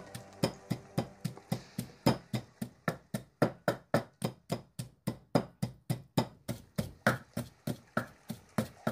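Wooden pestle pounding garlic, lemongrass, galangal and spices in a clay mortar, a steady beat of about four strikes a second, grinding them into a marinade paste.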